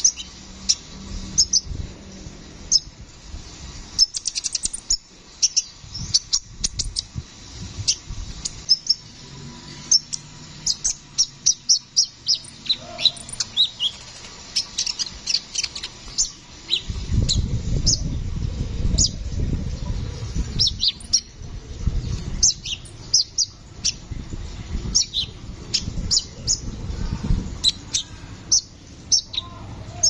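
Male sunbird singing a fast, continuous run of short, sharp, high chirps and trills. Partway through, a low rumble sets in underneath it.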